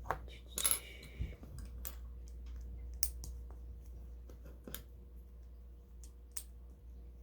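Small plastic LEGO pieces clicking and rattling as they are handled and pressed together: a brief rattle just under a second in, then scattered single clicks every second or so, over a steady low hum.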